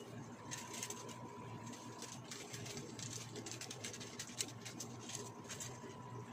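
Faint, irregular light crackles and ticks at a frying pan of carbonara on a gas stove while seasoning is added, over a low steady hum.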